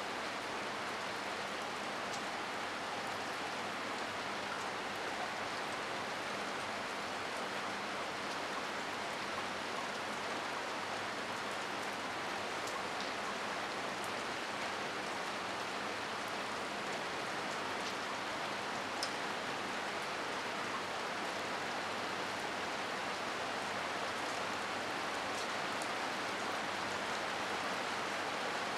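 Heavy rain falling steadily, an even hiss with now and then a single sharper drop tick.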